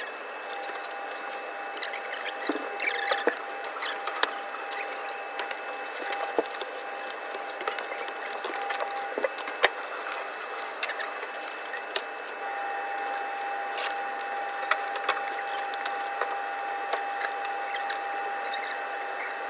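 Kitchen work sounds: scattered light clicks and knocks of plastic tubs and utensils being handled, over a steady background hum with a continuous mid-pitched tone that drops in and out and then holds steadily from about twelve seconds in.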